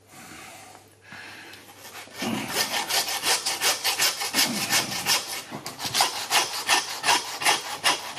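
Butcher's hand bone saw cutting through a pig's head, across the skull between the eyes and the teeth. Steady back-and-forth sawing at about three strokes a second, starting about two seconds in.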